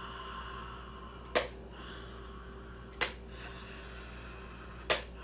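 Three sharp slaps, each a short crack, spaced about one and a half to two seconds apart.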